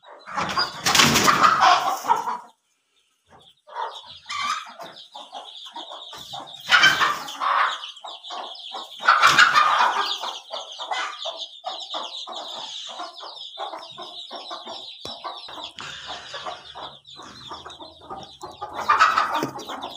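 Backyard chickens clucking, with several louder bursts and a steady high-pitched peeping running through from a few seconds in.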